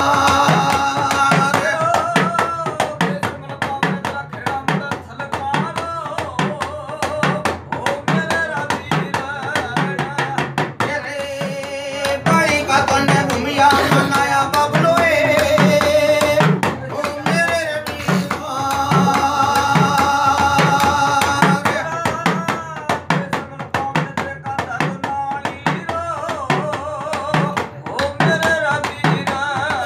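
Male voices singing a folk devotional bhajan over deru drums beaten with a stick in a steady rhythm, about two beats a second.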